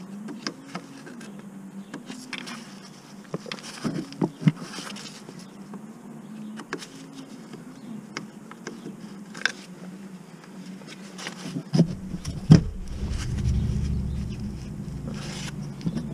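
Sharp metallic clicks and taps of a thin metal tool working at the retaining clip of the clutch hydraulic pipe's quick-release connector on the gearbox. Underneath is a steady, wavering buzz-like hum. About twelve seconds in, a loud low rumble sets in.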